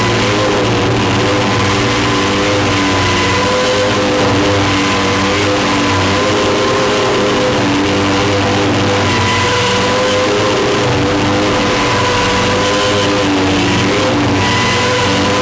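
A homemade amplified noise instrument (a wooden box fitted with two discs, metal rods and wires) screaming out a loud, continuous noisy drone with several held tones that waver slightly.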